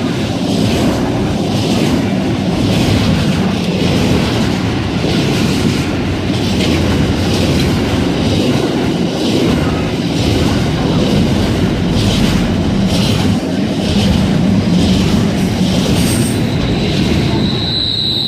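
Freight train wagons rolling past at speed, a steady rumble with the wheels clicking over rail joints about once a second. A brief high wheel squeal comes near the end.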